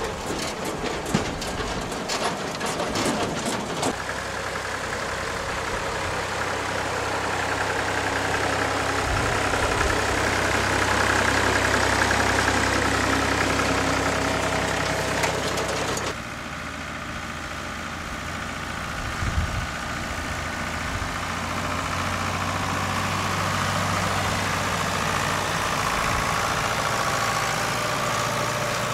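Tractor engines running steadily while pulling trailed sugar beet harvesters through the field, with the harvesters' lifting and cleaning gear working. The first few seconds hold a dense clatter of knocks.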